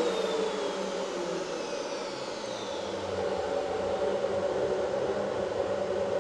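Steady rushing of a Black Box "Hurricane" vacuum pump, four vacuum motors in one unit, holding down a CNC router table. Over the first three seconds a faint whine falls away in pitch as the router spindle spins down after being switched off, while the gantry traverses along the table.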